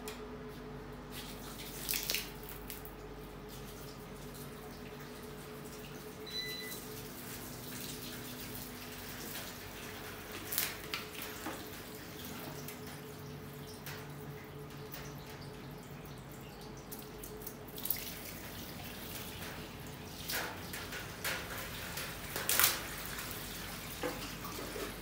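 Water poured from a bucket splashing and dripping on the metal top of a server rack cabinet, in several short bursts, over a steady hum.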